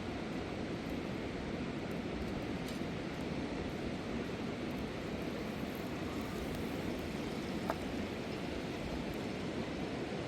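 Steady rushing of a fast-flowing river, an even, unbroken water noise.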